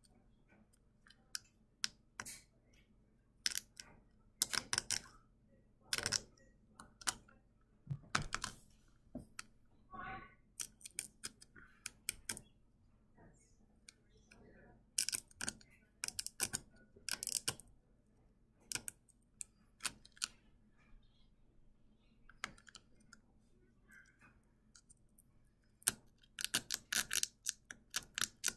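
A needle picking and scraping at a brittle dalgona sugar candy: irregular sharp clicks and ticks, sometimes in quick clusters, with quiet gaps between.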